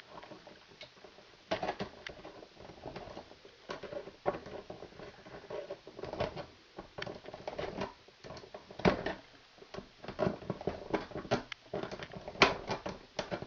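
Stiff insulated copper house wires being handled and bent by hand: irregular rustling and clicking, with a couple of sharper clicks, about nine seconds in and near the end.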